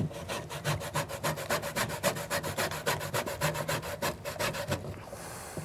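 Cupcake batter with buttermilk being mixed by hand in a bowl: quick, even stirring strokes that scrape the bowl, about eight a second, stopping shortly before the end.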